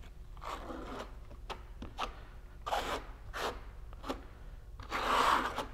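Steel V-notch trowel scraping through mortar on a concrete board in a series of short strokes, the longest and loudest near the end.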